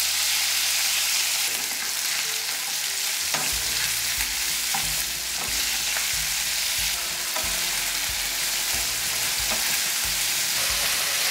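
Chicken pieces sizzling steadily in a non-stick frying pan as they are stir-fried, with a wooden spatula scraping and knocking against the pan now and then.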